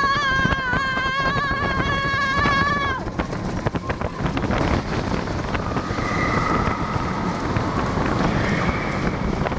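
Onboard sound of a bobsled roller coaster car running down its steel trough track: a steady rumble and rattle with wind on the microphone. A long high-pitched squeal is held for about the first three seconds, and a fainter one comes later.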